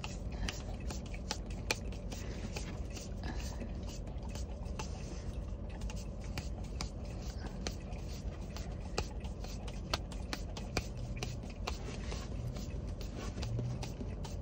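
Basset hound licking the whipped cream out of a paper puppuccino cup: wet tongue laps with irregular sharp clicks and smacks against the paper, over a steady low hum.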